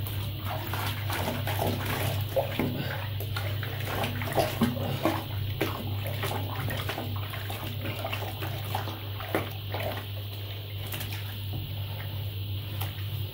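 Soapy bathwater sloshing and splashing in irregular small strokes as hands scrub and rinse a wet kitten in a bathtub, over a steady low hum.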